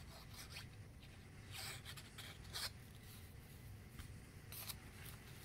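Faint paper handling: cardstock rustling and scraping in a few short strokes as a glued strip is handled and pressed into place.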